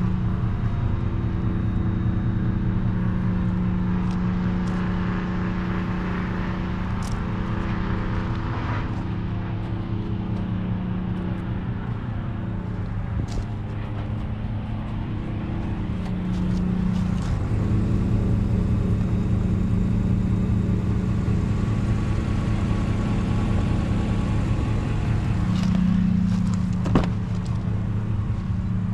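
A Ford F350 pickup's engine idling steadily, with one sharp click near the end.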